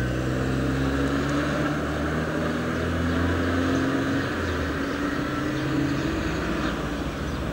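Street traffic: a car engine running as a car pulls away and drives off along the road, its pitch rising a little and then easing, over general traffic noise.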